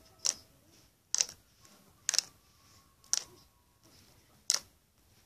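Five sharp, high clicks about a second apart, made by hands working right at the microphone.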